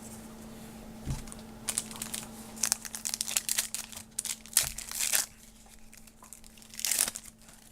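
Plastic wrapper of a trading card pack being torn open and crinkled by hand, in a run of sharp crackling bursts over a few seconds, with one more burst near the end.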